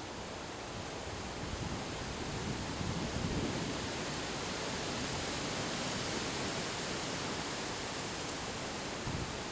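Strong wind from an autumn windstorm rushing steadily through trees, swelling a little a couple of seconds in.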